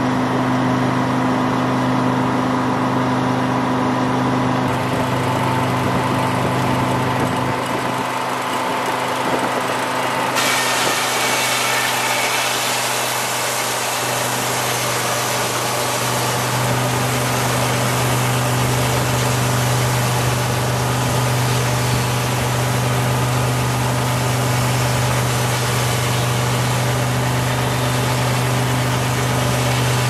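Detroit Diesel engine powering a Frick circular sawmill, running steadily with a constant low hum. A hiss above the hum gets louder about ten seconds in.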